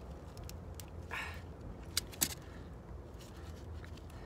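Wire stripper/crimper working trailer brake wires: small handling rustles and a few sharp clicks, two close together about two seconds in, over a steady low rumble.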